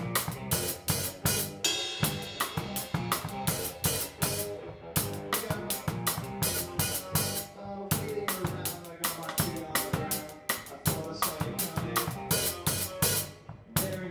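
Rock band playing live, heard from the drummer's seat: the drum kit's snare, bass drum, hi-hat and cymbals struck in a steady, driving rhythm, loud over electric guitar.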